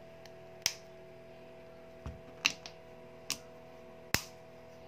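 Back cover of a Samsung Galaxy M30s being pressed onto the phone's frame, its clips snapping into place as a handful of sharp clicks, with a duller thump about two seconds in.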